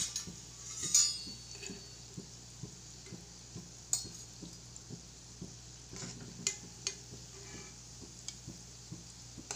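Gulab jamun balls deep-frying in oil in an iron kadai, a steady sizzle, with scattered clinks and scrapes of a metal spoon and slotted spatula against the pan as the fried balls are scooped out; the loudest clink comes about a second in.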